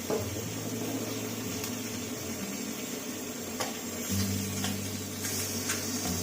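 Induction cooktop running off a power inverter: a steady low electrical hum with a thin high whine, the inverter's cooling fan, and eggs and bacon sizzling in hot oil, with a few faint clicks. The hum shifts and grows a little louder about four seconds in.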